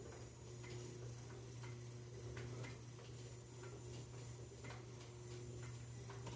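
Faint ticking and clicking from the movement of a Howard Miller cable-driven triple-chime grandfather clock, over a steady low hum. The chimes are switched to silent, so no chime plays.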